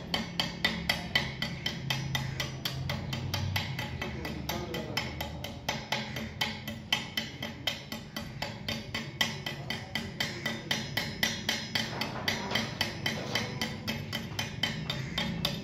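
Stick (arc) welding on a steel pipe: the electrode's arc crackling in rapid, irregular pops, over a low steady hum.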